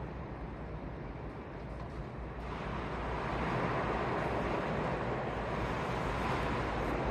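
Hurricane wind and rain, a steady rushing noise that grows louder and hissier about two and a half seconds in.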